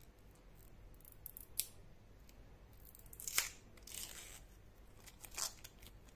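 Clear plastic protective film being picked and peeled off a watch's glass with a fingernail: faint, scattered scratches and crinkles, the sharpest click about three and a half seconds in.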